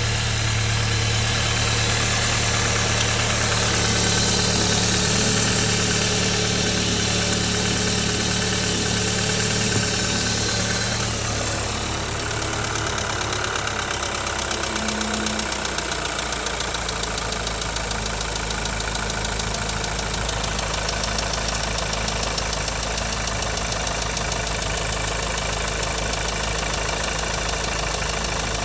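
Volkswagen 2.0 TSI turbocharged four-cylinder petrol engine idling. Its speed drops and settles to a lower, steady idle about eleven seconds in, with a quick regular ticking running through the idle after that.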